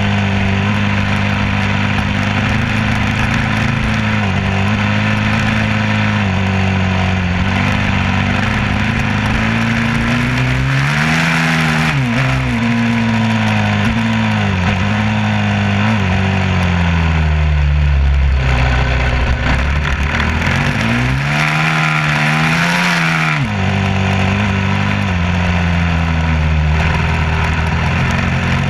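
An engine running steadily, its pitch swinging up and down twice, with the second change ending in a quick drop back to its steady note.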